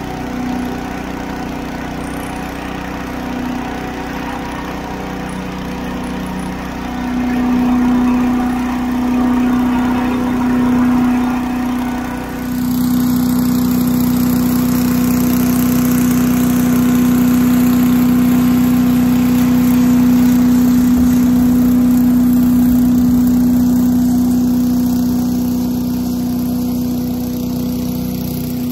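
8 hp Little Wonder leaf blower's small engine and fan running steadily under load, together with the compact tractor carrying it on its three-point hitch, as one steady engine drone. About twelve seconds in, the sound turns more even and a high hiss rises.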